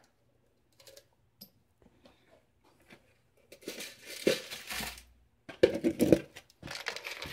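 Handling noise: after a quiet start, rustling with sharp light clicks comes in irregular bursts from about three and a half seconds in, loudest around six seconds. The source is small steel tumbling pins and brass cases being handled, with pins pulled off a magnet.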